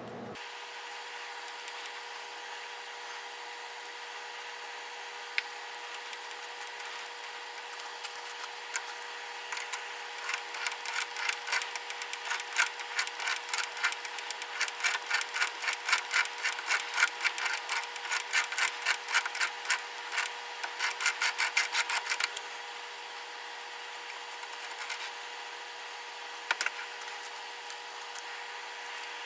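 Small metal lathe running with a steady motor hum while a threading die cuts a 1/4-28 thread on a bronze screw blank. Through the middle comes a rhythmic rasp of the die cutting, about two to three strokes a second, which then stops.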